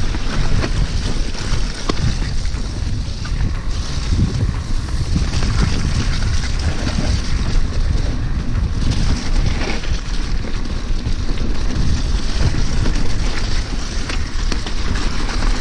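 Wind buffeting a mountain biker's action camera microphone as the bike rolls along a muddy, waterlogged trail, with tyres splashing and hissing through mud and puddles and many small knocks and rattles from the bike over rough ground.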